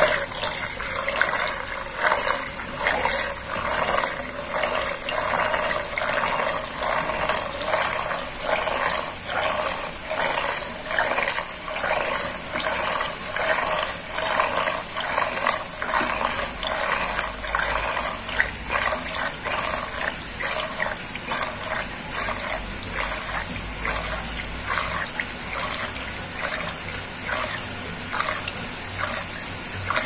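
Water swirling down a sink drain in a whirlpool vortex, gurgling in a steady repeating rhythm of roughly three gulps every two seconds over a constant rushing hiss.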